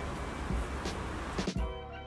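Background music with a drum hit about once a second. About one and a half seconds in, the outdoor background noise cuts out and the music carries on alone with held notes.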